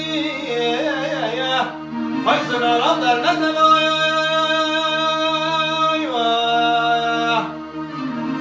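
A man singing a Turkish folk melody in an ornamented, gliding style over the sustained chords of a Korg electronic keyboard. He holds one long note in the middle, steps down to a lower held note about six seconds in, and pauses shortly before the end while the keyboard keeps sounding.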